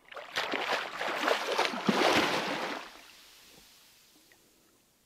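Water splashing as a snorkeler kicks and ducks under the surface for a dive. The splashing builds for about two seconds, then dies away over the next two.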